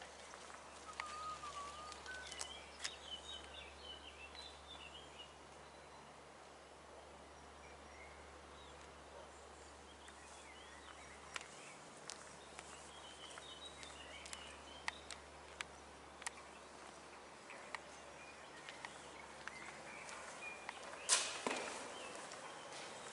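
Footsteps on a path, with small birds chirping and singing now and then against a faint steady hum. About 21 s in, one sharp knock rings out briefly, the loudest sound here.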